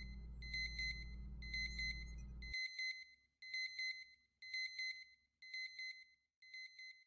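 Electronic alarm beeping: a high tone repeating in short pulsed bursts about once a second, over a low hum that cuts off suddenly about two and a half seconds in.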